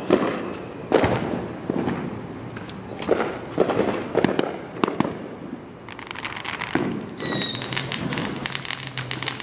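Fireworks going off: a string of bangs, roughly one every half second to a second, then from about six seconds in a dense crackling with a brief high whistle.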